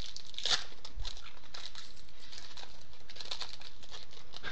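Light rustling and crinkling as baseball cards and a foil pack wrapper are handled, in scattered short bits with a slightly louder rustle about half a second in.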